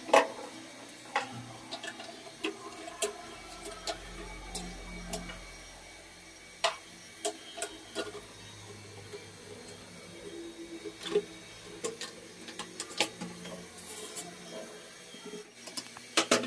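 Irregular light clicks and taps of plastic toilet-seat parts being handled and fitted: hinge fixings pushed into place on the seat and against a ceramic commode.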